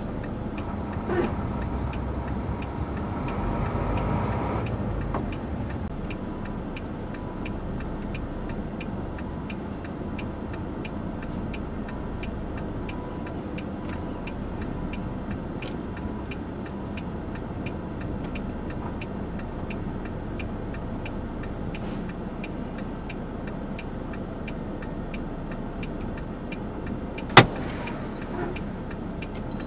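Truck cab noise of the engine and road running steadily, with a faint regular ticking throughout. A single sharp click comes near the end.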